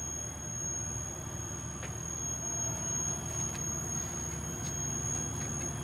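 Fendo 350M manual bandsaw running idle, its blade turning without cutting, driven by a variable-speed AC drive. It makes a steady hum with a thin high-pitched whine over it and a few faint ticks.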